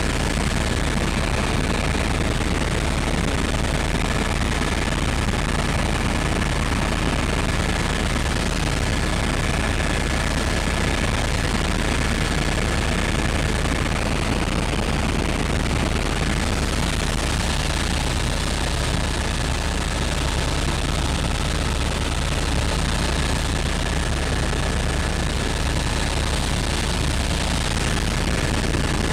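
Helicopter in flight heard from inside the cabin: a loud, steady rush with a rapid rotor beat underneath and a thin high whine that fades out for a few seconds around the middle.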